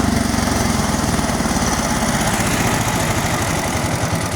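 Engine of a rice harvesting machine running steadily with an even, fast pulse.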